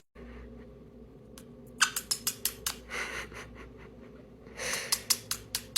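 An animal sneezing: a quick run of many tiny, sharp sneezes, with two longer breathy snorts in the middle, over a faint low hum.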